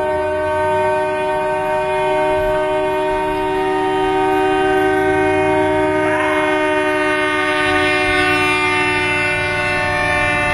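A horn sounding one loud, steady chord of several tones without a break, cut off abruptly near the end.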